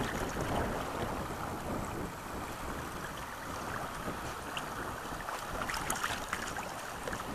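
Fast river water rushing and lapping around a canoe running a choppy riffle, with wind rumbling on the microphone. A few short sharp clicks come about six seconds in.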